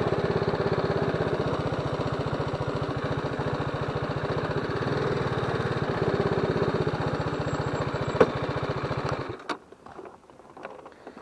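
TVS Apache RR 310's single-cylinder engine running at low revs with a steady rapid pulse as the bike is ridden slowly over a rough dirt track, with one sharp tick shortly before the end. The engine cuts off abruptly about nine seconds in, leaving a few faint clicks and scuffs.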